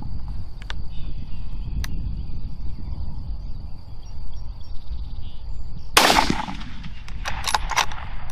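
A single hunting-rifle shot about six seconds in, loud and sharp with a short ringing tail, followed about a second later by several quick sharp clicks, over a steady low rumble of wind on the microphone.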